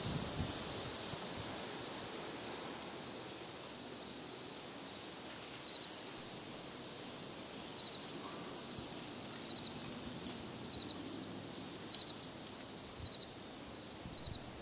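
Quiet outdoor ambience: a steady faint hiss, with an insect giving a short, high double chirp about once a second.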